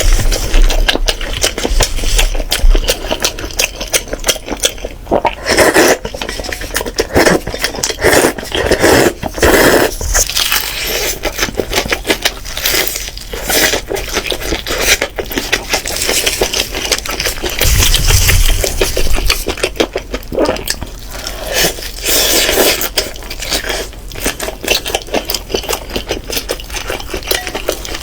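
Kitchen utensils and dishes clinking and scraping during food preparation, a busy run of clicks and knocks.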